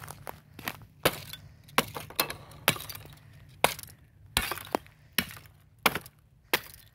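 Thin sheets of ice over dry leaf litter cracking and shattering underfoot, with a glassy clink: about ten sharp cracks at uneven intervals, with smaller crackling between them.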